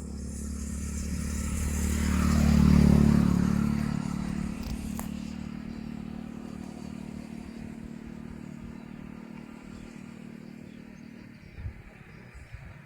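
A motor vehicle's engine passing by: it grows louder to a peak about three seconds in, then slowly fades away.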